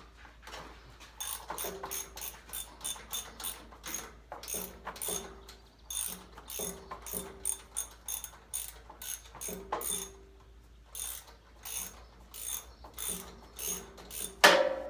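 Socket ratchet wrench clicking in runs of strokes as a bolt is turned, some clicks followed by a brief metallic ring. One louder metal clank comes near the end.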